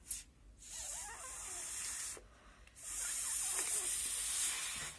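A child blowing hard into a folded paper lotus to puff it open: two long breathy blows, each about a second and a half, with a short pause between.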